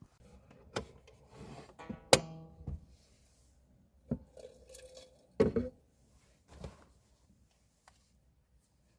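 Objects being handled in a small enclosed space: a series of irregular knocks and clatter, loudest about two seconds in and again about five and a half seconds in, with a short squeak around the first cluster.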